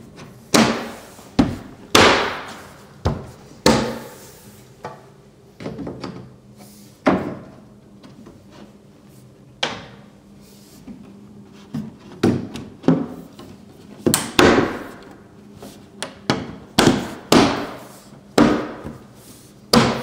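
Wooden slats being pushed by hand and snapped onto Lamello Tenso connectors on a wall: more than a dozen sharp knocks, irregularly spaced, each ringing briefly.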